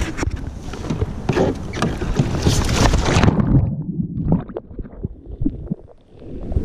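Water splashing and sloshing loudly around a Hobie kayak as it is rolled over in the water. A little past a third of the way in the splashing cuts off abruptly, leaving a muffled low rumble with scattered knocks for about three seconds.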